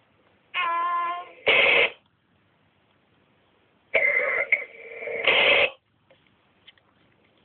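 Someone coughing and clearing their throat over a CB radio, heard through the radio's speaker with its narrow, tinny sound. Before it comes a short steady tone and a brief loud burst of radio noise.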